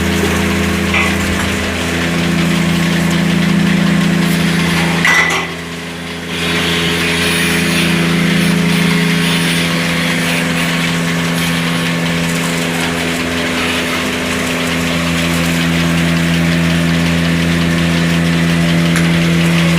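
A machine running steadily with a constant low hum, dipping briefly about five and a half seconds in.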